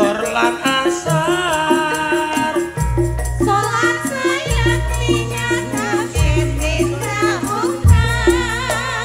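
Campursari music: a male and a female singer take turns singing, with wavering vibrato, over a band of gamelan and drums keeping a steady beat. A deep bass line comes in about three seconds in.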